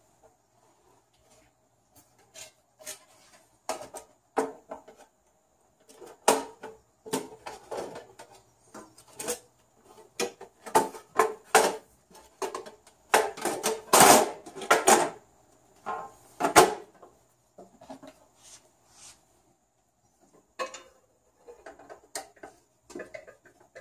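Stainless-steel sheet-metal casing of a Rancilio Silvia espresso machine being handled and slid down over its frame: a run of metal clanks, knocks and scrapes, busiest and loudest about halfway through, then only a few faint clicks near the end.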